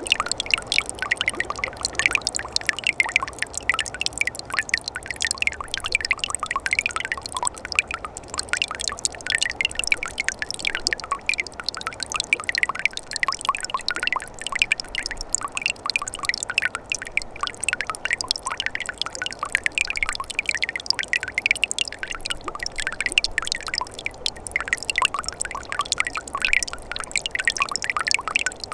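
Mountain stream running over rocks, a steady dense trickle and gurgle full of quick bright water plinks.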